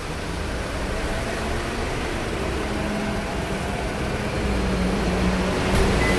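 City street traffic: a motor vehicle's engine running with a low rumble that grows slowly louder.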